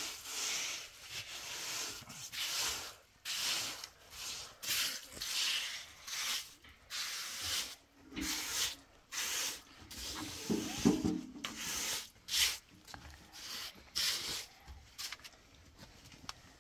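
Repeated, irregular scraping strokes, roughly one every half second to a second, with a single sharp knock about twelve seconds in.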